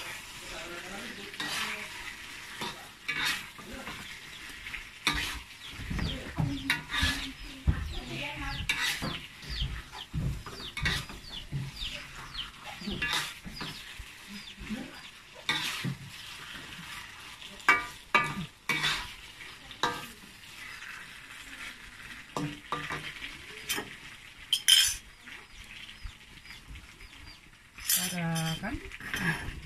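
A metal spatula scraping and knocking against a steel wok in irregular strokes as eggplant in sambal is stir-fried, over steady sizzling from the pan.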